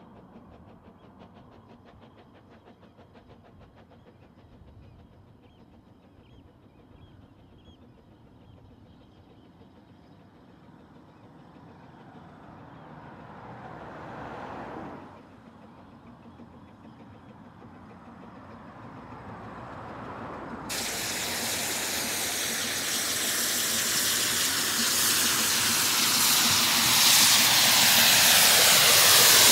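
Double Fairlie steam locomotive Merddin Emrys running with its train, faint at first and growing louder as it approaches. About two-thirds of the way in, loud steam hissing sets in suddenly and builds to the end.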